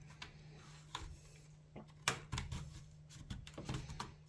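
Plastic retaining clips of a Dell Inspiron 15 5567's bottom case clicking loose one after another as a spudger is slid along the seam between the keyboard deck and the bottom shell. A string of short, sharp clicks, the loudest about two seconds in.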